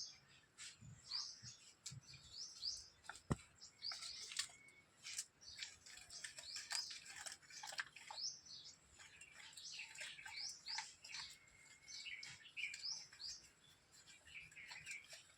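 Small birds chirping, many short high calls repeating and overlapping throughout, with a single sharp click about three seconds in.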